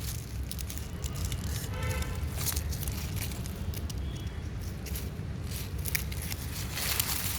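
Dry dead leaves crackling and rustling in short irregular bursts, over a steady low rumble.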